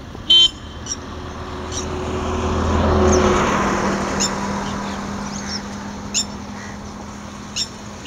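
A motor vehicle passing on a road: a steady rush that builds to its loudest about three seconds in, then slowly fades. A short, loud toot sounds just after the start, and brief high bird chirps come now and then.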